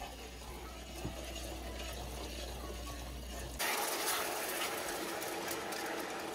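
A ladle scraping faintly in a steel saucepan of halwa mixture over a low hum. About three and a half seconds in, water poured from a small pot into the hot pan starts a loud, sudden hissing and sputtering.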